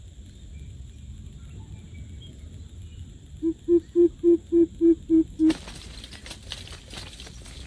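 Greater coucal calling: a series of eight deep, evenly spaced hoots, about three a second. About five and a half seconds in, a sudden run of rustling and scuffling noises takes over.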